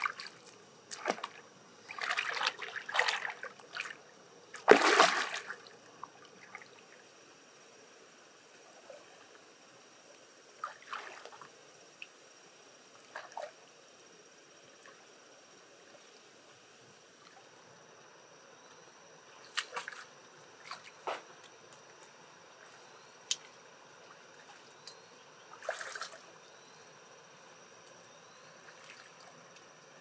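Wet handling of a pearl mussel: water dripping and trickling, with squelching and sharp clicks. It is busiest in the first six seconds, with the loudest burst about five seconds in, then thins to scattered drips and clicks.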